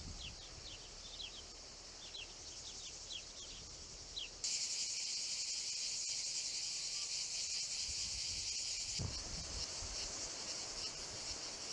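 Cicadas buzzing in olive trees: a steady, high-pitched shrill that suddenly gets much louder about four and a half seconds in. A few short, high chirps sound over it in the first seconds.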